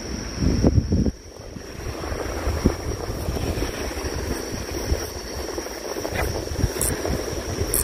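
Wind buffeting the microphone, heavy for about the first second and then easing to a steady rush of wind with sea noise beneath it. A thin steady high whine runs throughout, and a few faint ticks come near the end.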